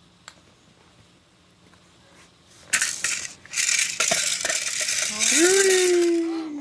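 Loud clattering and rattling of tableware on a feeding tray, starting about three seconds in, with a baby's long drawn-out vocal sound over the last second or so.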